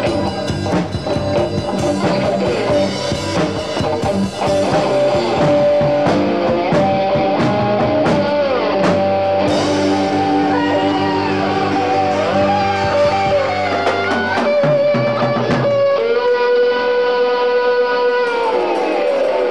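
Live rock band with electric guitar, bass guitar and drum kit playing an instrumental passage. About three quarters of the way through, the drums drop out and a held guitar chord rings on, then slides down in pitch near the end.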